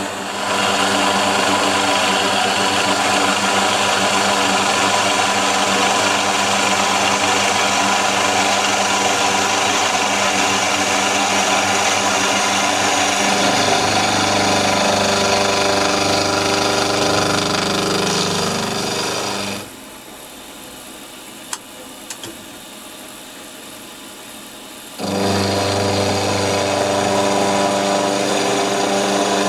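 Small milling machine running a carbide end mill through the edge of a metal plate: a steady motor and spindle whine mixed with cutting noise. About two-thirds through, it drops suddenly to a low hum for about five seconds, with a couple of faint clicks, then comes back just as loud.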